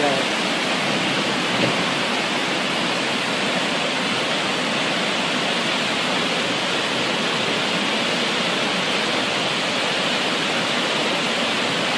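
Flash floodwater thick with mud and debris rushing past in a steady, unbroken torrent.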